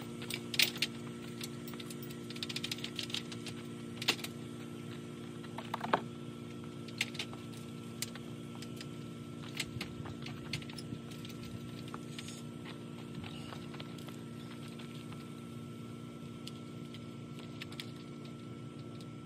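Scattered sharp metallic clicks and taps of steel greenhouse pipes and clamp fittings being handled and fitted, over a steady hum with a faint high tone.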